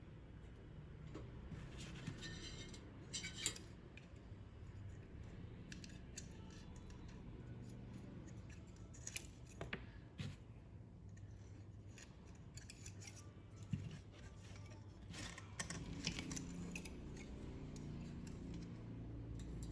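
Scissors snipping and small sharp clicks of hand work, in short clusters with pauses between, over a faint low hum.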